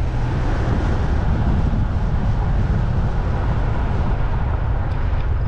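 A car driving along a road: a steady low rumble of wind buffeting the microphone, mixed with road noise.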